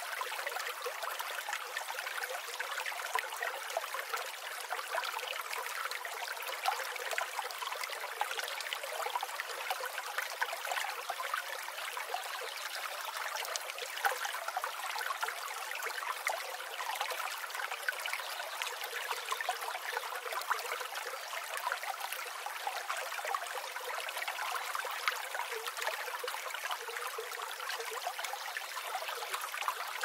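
Stream water trickling and babbling steadily.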